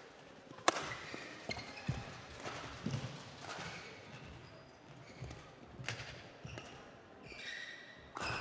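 Badminton rally: rackets strike the shuttlecock every second or so, the sharpest hit about a second in. Between the hits come short shoe squeaks and footfalls on the court mat.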